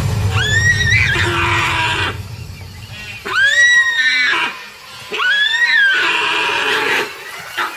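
Sambar deer screaming in distress three times while caught by a tiger, each call a high-pitched cry under a second long that rises and then falls, with splashing in shallow water between the calls.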